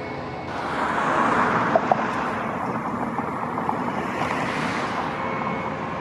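Backpack leaf blower running, its rushing noise swelling about half a second in and easing off over the next few seconds, with two short clicks about two seconds in.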